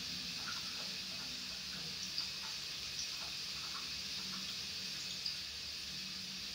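A steady hiss throughout, with faint soft rustles and light ticks every second or so as a cat noses through clothes in a laundry basket.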